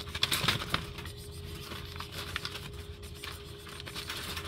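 Wire cage trap clicking and scraping as the trapped cat shifts inside and a hand rests on the mesh, busiest in the first second, over a faint steady hum.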